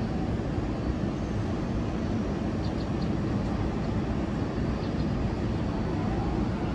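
R188 subway train running, a steady low rumble with a few faint high ticks in the middle.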